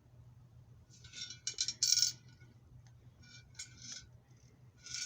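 Piggy bank being handled and shaken, its loose contents clinking and rattling in several short bursts, loudest about two seconds in.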